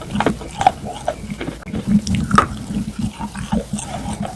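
Close-up chewing and crunching of slate pencil pieces mixed with a wet paste: irregular crisp crunches among moist mouth sounds, one sharper crunch about halfway through.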